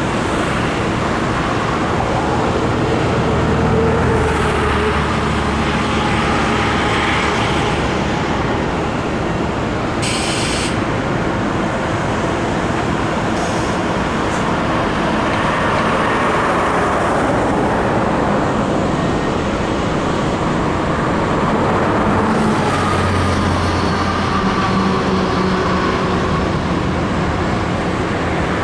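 Steady road traffic noise from passing cars and trucks. A low rumble from heavier vehicles swells twice, and there is a short hiss about ten seconds in.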